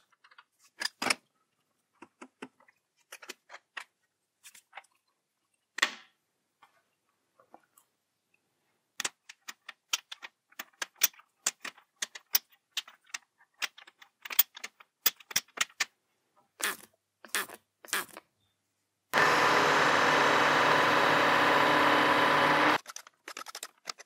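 Scattered light metal clicks and taps as tools and an aluminium block are handled and set in a milling-machine vise, then, from about three quarters of the way in, a milling machine cutting for a few seconds, a loud steady machine noise that cuts off suddenly.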